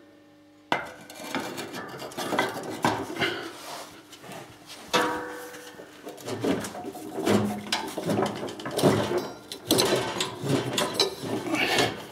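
A steel bar clanking and scraping against the mower deck's metal pulley support and tensioner pulley as it is levered against the tensioner spring to slacken the deck belt. The irregular metal knocks and scrapes begin about a second in.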